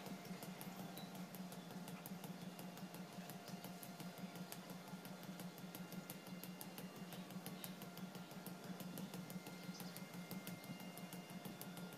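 Fast, continuous light punches on a hanging punching bag: a faint, rapid patter of soft hits many times a second, over a steady low hum.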